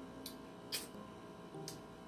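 Shrimp shell being cracked and peeled by hand: three short, sharp crackles, the loudest about three-quarters of a second in, over faint background music.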